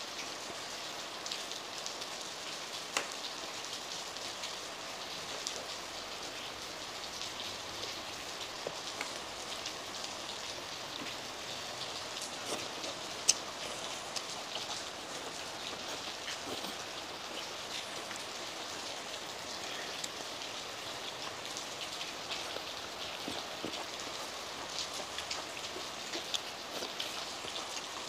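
Heavy rain falling steadily, a dense hiss of many drops, with a few sharper single ticks, the loudest about thirteen seconds in.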